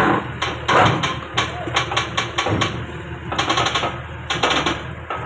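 Backhoe's diesel engine running steadily under a string of sharp knocks and clanks, some coming in quick rattling clusters.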